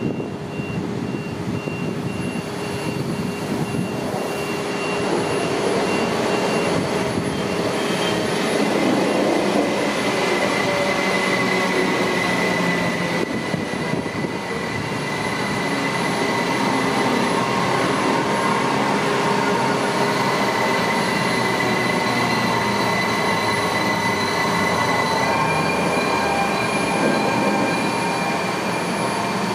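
A train running on the rails: steady rolling noise with long, high, steady whining tones over it, growing a little louder over the first few seconds.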